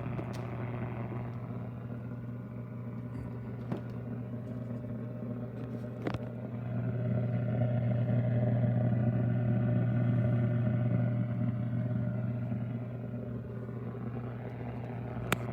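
Vintage RCA tube radio humming steadily with a low mains hum, louder for a few seconds midway, with a few sharp clicks and knocks from the set being handled.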